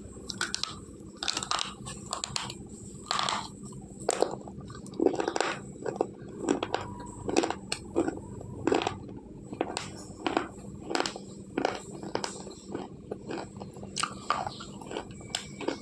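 Slate pencils bitten and chewed a whole bunch at a time: a steady run of sharp, gritty crunches, roughly one to two a second.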